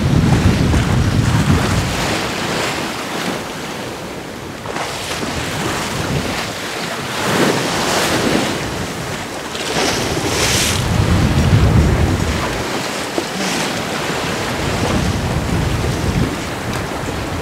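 Wind buffeting the microphone over the rush of waves along a sailboat's hull as it sails through choppy open sea, with a few louder swooshes of water about halfway through.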